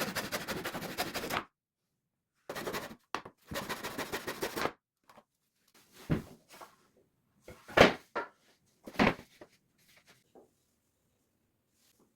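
Scraping, rattling handling noise in three stretches over the first five seconds, then a few separate knocks, the loudest about eight seconds in.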